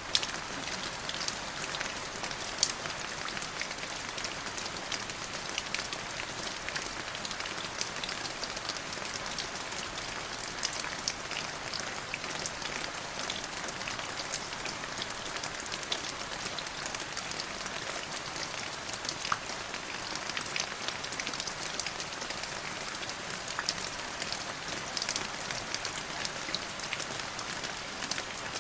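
Steady rain falling, with many individual drops ticking sharply through the even hiss.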